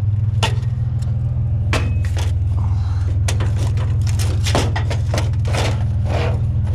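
Truck engine idling steadily, with a scattering of short clanks and scrapes from metal scrap being handled.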